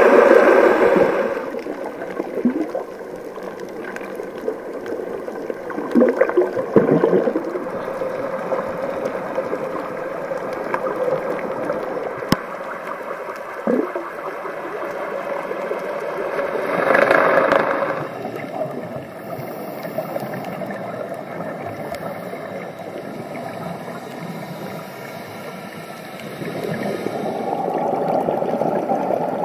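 Scuba regulator breathing heard underwater through the camera housing: gurgling bursts of exhaled bubbles at the start, about six and seventeen seconds in and near the end, with a steady water hiss between.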